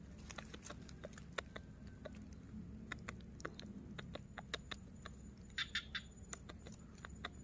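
Faint, irregular sharp clicks and ticks, a few each second, with a short quick cluster of higher chirp-like clicks about six seconds in, over a faint steady high hiss.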